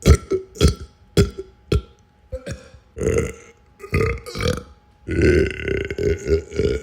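A run of burps: four short, sharp ones in the first two seconds, then two longer burps, and a long one lasting nearly two seconds from about five seconds in.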